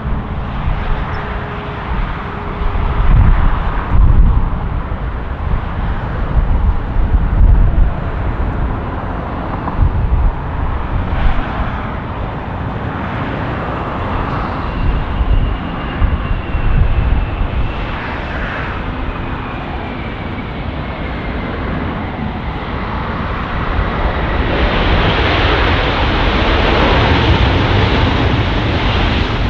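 Emirates Airbus A380's four Engine Alliance GP7200 turbofans on landing, a jet whine falling slowly in pitch over a gusty low rumble, then a broader, louder roar building for the last few seconds.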